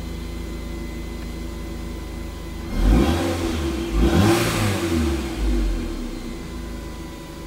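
Toyota MR2 Turbo's 3S-GTE turbocharged four-cylinder idling steadily, heard from inside the cabin, then revved in a few quick blips from about three seconds in before settling back to idle.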